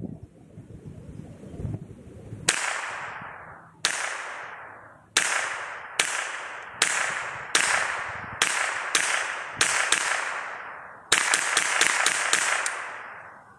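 Remington Model 552 Speedmaster .22 semi-automatic rifle fired about sixteen times, emptying the full 15-round tube magazine plus the round in the chamber without a jam. The first ten shots are spaced out and the last half-dozen come in a quick string near the end, each sharp crack trailing off in a long echo.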